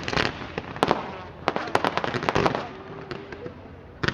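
Fireworks going off: a rapid run of bangs and crackles that thins out to a few scattered pops over the last second and a half.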